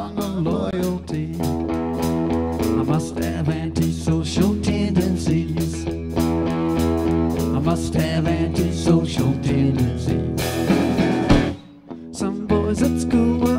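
Live rock band playing: electric guitars, bass and drums with a male lead vocal. Near the end the band stops dead for a moment, then comes back in.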